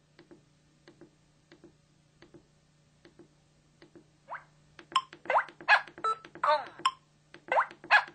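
LG-KF1000 mobile phone playing one of its built-in tones through its small speaker: faint ticks about every three-quarters of a second, then, from about four seconds in, a quick run of short, bright chirping tones, several sweeping upward.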